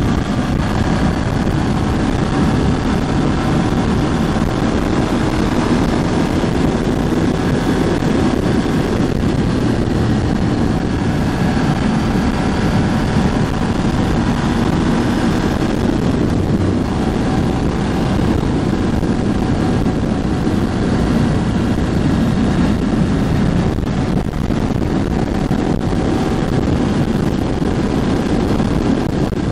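Ducati Hypermotard 1100S's air-cooled L-twin engine running at a steady cruise, its pitch drifting gently up and down with small changes in speed, mixed with wind rush on the microphone. The bike is still being run in.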